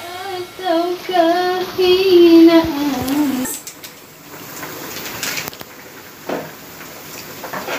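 A high voice sings a short phrase of held, wavering notes for about three seconds. It then stops, leaving quiet handling sounds with a few sharp clicks.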